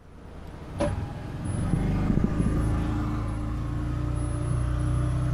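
Can-Am Defender HD10 side-by-side's V-twin engine running under load as it drives through snow. A single knock about a second in, then the engine sound builds and holds steady.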